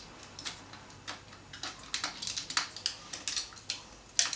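Allen key clicking in the head of a handlebar clamp bolt as it is worked tight: a string of irregular, sharp metal ticks, the loudest near the end.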